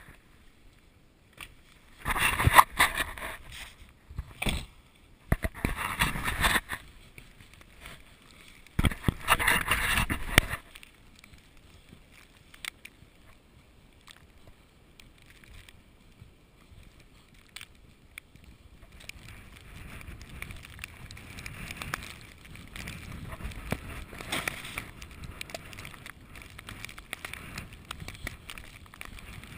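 Snowstorm wind gusting against the microphone: three loud gusts in the first ten seconds, then a steadier, quieter rush of wind from about twenty seconds in.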